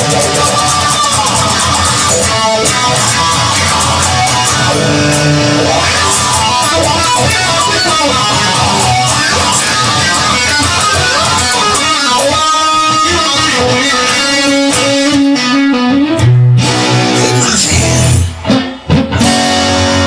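Music: an electric guitar song playing steadily, with two brief breaks near the end.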